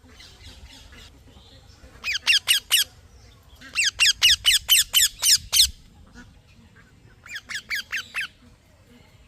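Indian ringneck parakeet calling in quick bouts of repeated sharp chirps, about five a second, three bouts in all, with fainter calls at the start.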